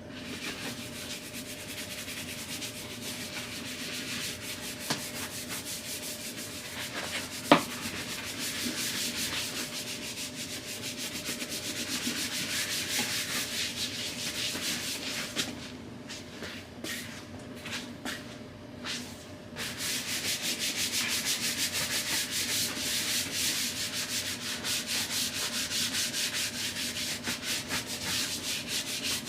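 Horsehair brush scrubbing back and forth over a leather car seat, fast steady strokes, thinning to a few single strokes for several seconds just past halfway and then resuming harder. A single sharp click, the loudest moment, comes about a quarter of the way in, over a faint steady hum.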